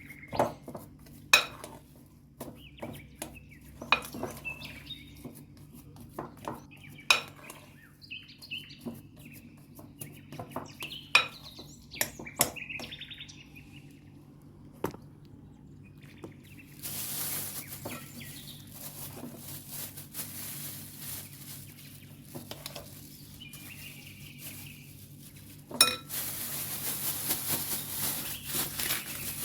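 A metal utensil clinking and knocking against a pan during stirring, in sharp taps spread over the first half. From about halfway a steady sizzling hiss of food frying sets in, louder from near the end.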